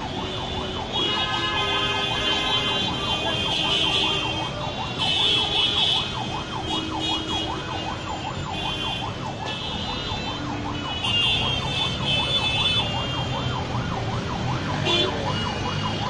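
An emergency-vehicle siren warbling rapidly up and down, about four times a second, over street traffic noise.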